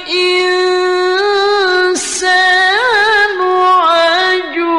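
A man reciting the Quran in melodic tilawah style: a high voice holding a long, ornamented note on 'wa kāna', then, after a short breath about two seconds in, moving into 'al-insān' with wavering turns.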